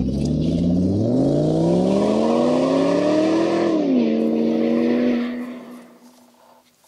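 Car engine idling, then revved once: the pitch climbs for about three seconds, drops back, holds briefly and fades out.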